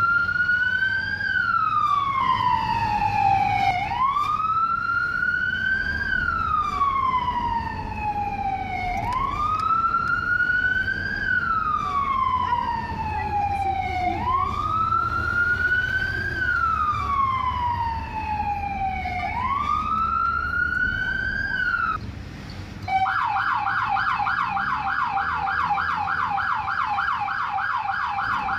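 American-style electronic police siren heard from inside the car's cabin. It wails, rising quickly and falling slowly, about every five seconds, then breaks off briefly near the end and switches to a fast warbling yelp. A low engine and road rumble runs underneath.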